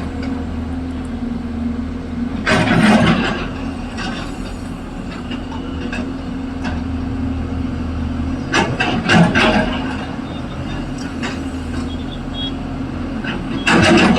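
Excavator's diesel engine running steadily under load, with three short bursts of clanking and scraping: about two and a half seconds in, around nine seconds in, and near the end.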